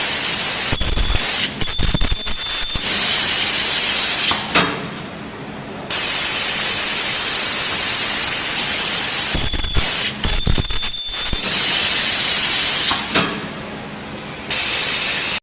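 Ultrasonic PVC cylinder-forming welding machine running through its work cycle. A loud steady hiss is broken twice by a second or two of clunks and clicks with a brief thin high tone, and by short quieter gaps; the pattern repeats about every eight to nine seconds.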